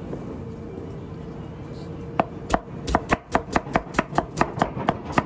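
Cleaver chopping vegetables on a wooden cutting board: about two seconds of steady background noise, then a fast run of sharp knocks, about five a second.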